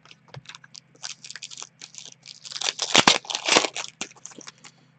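Foil trading-card pack wrapper being torn open and crinkled, with the cards handled, in a run of short scratchy rustles, loudest about three seconds in.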